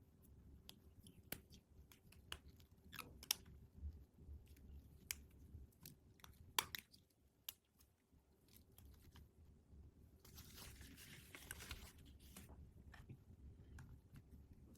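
Quiet close-miked handling of toy packaging during an unboxing: scattered sharp clicks and taps, then about two seconds of crinkling rustle starting around ten seconds in.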